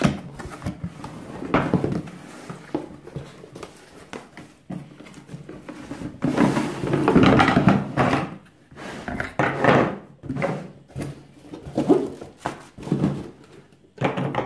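Unboxing handling noise: a cardboard box scraping and rustling as it is opened, with irregular knocks as a patio cleaner's hard plastic head and lance tubes are set down on a table. A longer stretch of scraping comes about six to eight seconds in.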